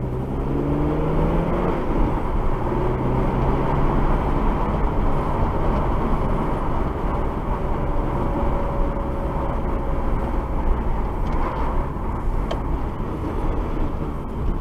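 Car engine and road noise picked up inside the cabin by a dash cam's microphone while driving. The engine note rises over the first couple of seconds, then the car cruises steadily.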